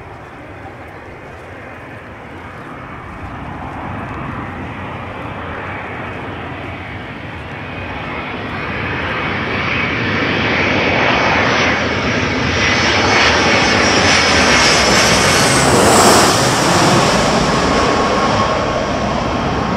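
Boeing 737 jet airliner on final approach passing low overhead, its CFM56 turbofan engines growing steadily louder with a high whine, loudest about sixteen seconds in as it passes, then starting to fade as it heads away.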